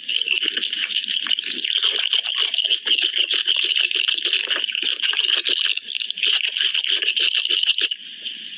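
Close-up chewing of Korean fried chicken: rapid, continuous crackling crunches of the crisp coating mixed with wet mouth sounds, a little quieter near the end.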